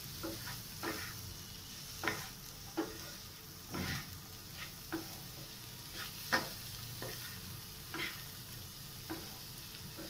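Wooden spatula stirring and scraping a corn and paneer filling around a non-stick frying pan, a scrape roughly every second, over a steady low sizzle of the food frying.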